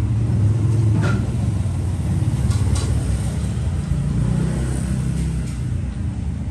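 Steady low rumble of passing road traffic, with a sharp click about a second in and two more close together a little later.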